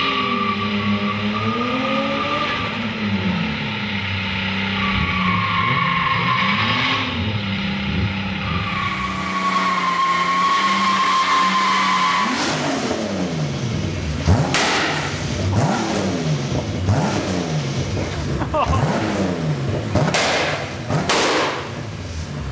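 Car engine held at high revs with rear tyres squealing during a burnout. About 12 seconds in it changes to the engine revving up and down over and over, with short bursts of tyre squeal as the car spins donuts.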